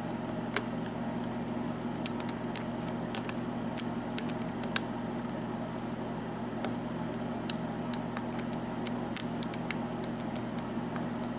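Lock pick working the first pin of a Sargent six-pin lock cylinder with security pins: faint, irregular metallic clicks and ticks as the pin is probed and lifted, over a steady low hum.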